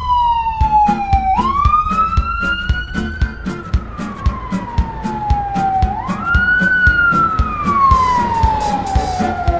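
Ambulance siren on a slow wail, each cycle rising quickly and then falling slowly, with new rises about a second in and again about six seconds in. Under it runs background music with a steady beat.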